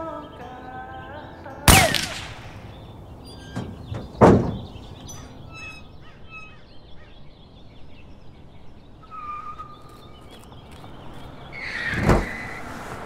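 A gunshot sound effect: two sharp bangs about two and a half seconds apart, then birds chirping and another bang near the end.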